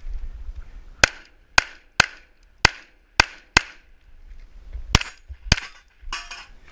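Pistol shots: a quick string of six shots about half a second apart, then two more after a pause of over a second.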